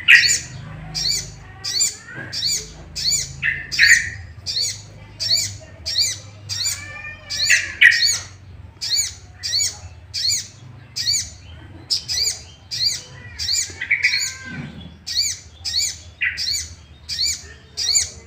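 Sogok ontong (sogon), a spiderhunter, calling over and over: sharp, high notes about one and a half a second, with louder, lower notes mixed in every few seconds. It is a lure call used to provoke a kept bird of the same kind into fighting song.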